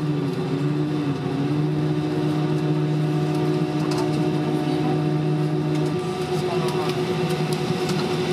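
Steady drone inside the cabin of an Airbus A320 during taxi, from its engines at idle and the cabin air. A low steady hum in it stops about six seconds in.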